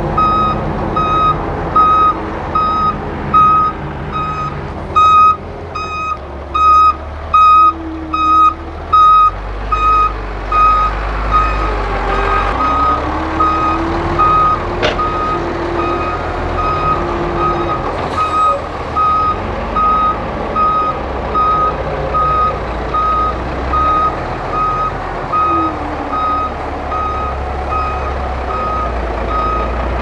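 A vehicle's reversing alarm beeping in an even, steady rhythm over the low running of a heavy diesel dump truck engine as the truck manoeuvres. There is a single sharp click about halfway through.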